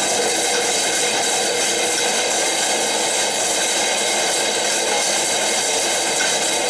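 CNC machining centre cutting a metal part: a steady, even hiss of cutting and coolant spray with several faint steady tones from the running machine.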